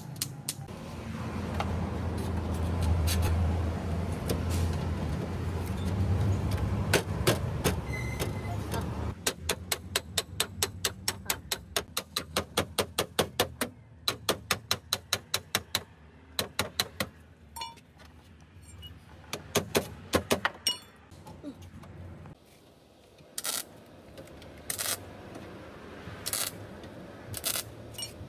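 Hammer striking a thin sheet-metal strip being shaped into a patch panel for a rusted car door sill: long runs of quick, even blows about four a second, then clusters and a few spaced single strikes. A steady low rumble sits under the first several seconds.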